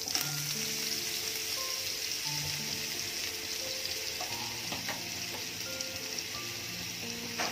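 Butter melting and foaming in hot oil in a nonstick frying pan, sizzling steadily, with soft background music underneath.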